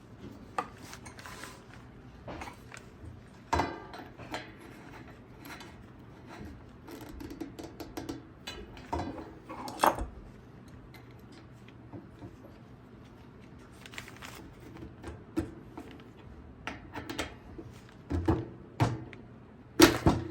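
Irregular metallic clinks and knocks of hand tools and bicycle parts being handled, with louder knocks about ten seconds in and near the end, over a steady low hum.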